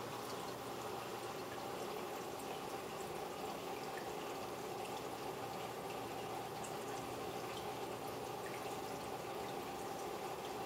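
Steady trickling and bubbling of water in a turtle tank, with scattered small drips and a faint steady hum from the tank's equipment.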